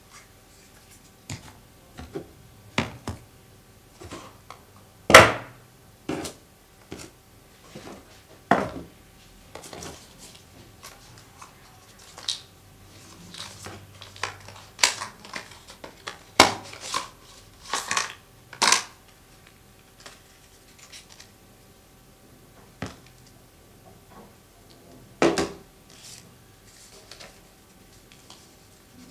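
Hands unboxing a new phone, handling its box, packaging and the handset: a string of irregular clicks, taps and light rustles, the sharpest knock about five seconds in.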